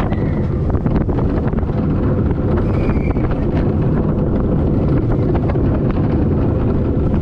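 Vekoma Family Boomerang roller coaster train running along its steel track: a loud, steady rumble of the wheels with wind rushing over the microphone and many quick rattles and clicks.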